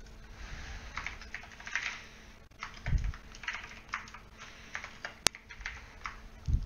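Typing on a computer keyboard: an uneven run of key clicks, with a couple of duller, heavier strokes about three seconds in and near the end.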